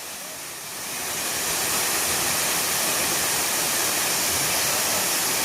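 Rushing water of a waterfall: a steady hiss that grows louder over the first two seconds and then holds level.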